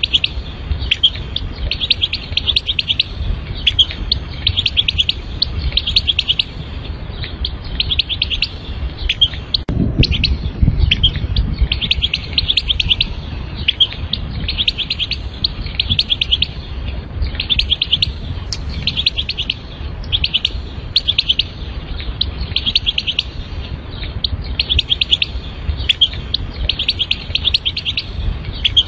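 European goldfinch singing: rapid twittering chirps in bursts of about a second, repeated over and over, with a low rumble underneath that swells about ten seconds in.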